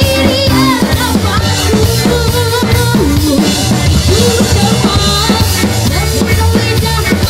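Live band playing a song, the drum kit loud in the mix with a steady beat of drum and cymbal strikes under a wavering melody line.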